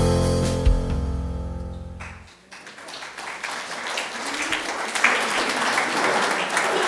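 The last held chord of a hymn's musical accompaniment fades out over about two seconds. Then the congregation applauds steadily until the end.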